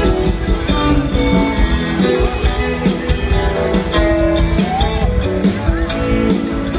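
Live rock band playing: electric guitars over bass and drums, recorded from the audience.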